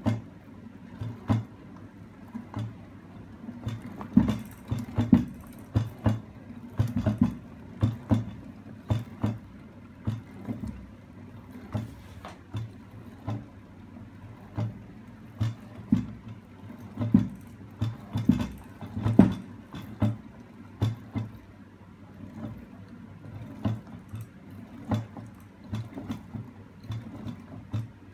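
Homemade magnet-and-spring rocking mechanism with a roller-chain drive running: its arm and magnet stacks knock over and over, roughly once or twice a second and not quite evenly, over a low steady mechanical rattle.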